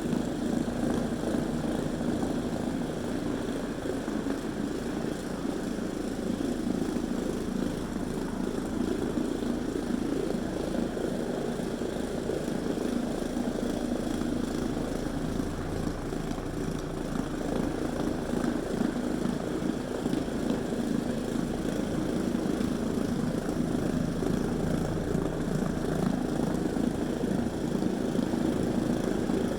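Trinity Phoenix low-moisture floor cleaning machine running steadily as it scrubs a rubber gym mat with its pads, a constant motor drone with a low hum.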